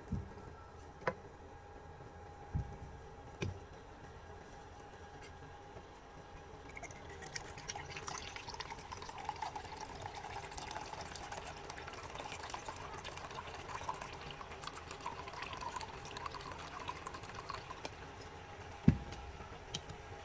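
Liquid being poured into a container for about ten seconds, a steady splashing pour. A few light knocks come before it, and a single louder thump comes near the end.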